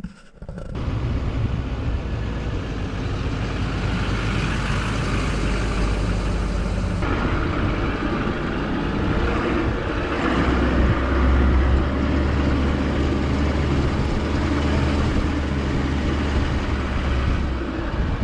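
Pickup truck driving off-road over a dirt track: steady engine running with tyre and wind noise. It starts suddenly about a second in.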